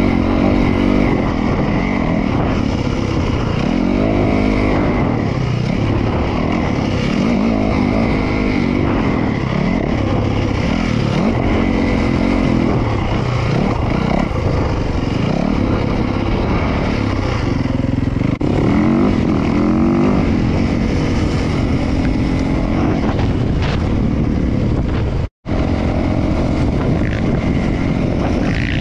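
Dirt bike engine revving up and falling back again and again as it is ridden along a rough dirt trail. The sound cuts out for a moment about 25 seconds in.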